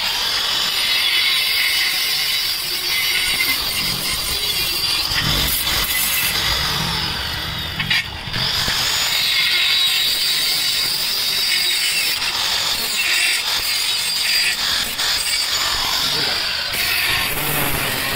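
Handheld angle grinder with a cut-off disc cutting through rusty square steel tube: a steady high-pitched whine with a harsh grinding hiss as the disc bites the metal, briefly interrupted about eight seconds in.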